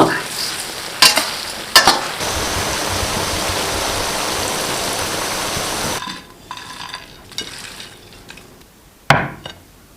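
Rabbit pieces sizzling in oil in a wok as they are stir-fried with dried chillies, with a couple of spatula knocks against the pan early on. About six seconds in the frying stops abruptly, leaving only faint clicks and a brief louder rustle near the end.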